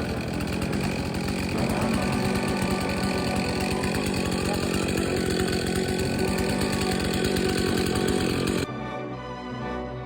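Husqvarna Rancher 450 two-stroke chainsaw running steadily, with a 16-inch bar and a freshly sharpened .325 semi-chisel chain. The saw cuts off abruptly near the end and music takes over.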